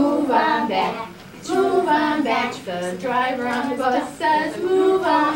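A woman and a group of young children singing a nursery song together, in phrases with short breaks between them.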